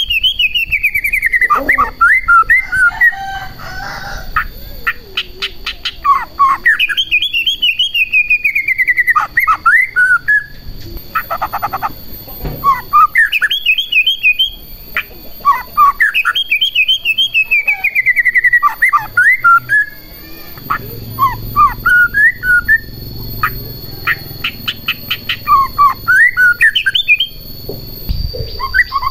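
White-rumped shama in full song: long whistled phrases that glide downward, broken by quick runs of clicking chatter and short rising notes.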